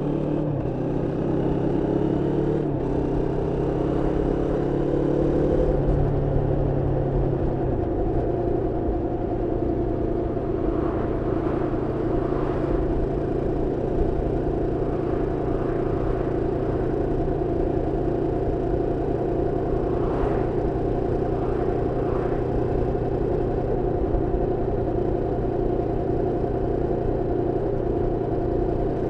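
Moto Morini X-Cape 649's parallel-twin engine on the road during running-in: it picks up revs and shifts up twice in the first few seconds, then holds a steady cruise.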